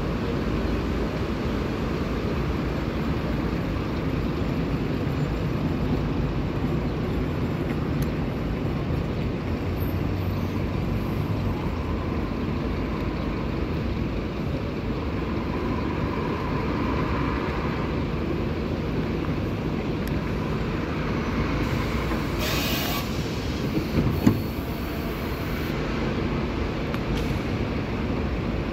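Cabin noise inside a Scania city bus on the move: a steady low rumble of engine and rolling noise. About three-quarters of the way through there is a brief hiss, followed by a single sharp knock.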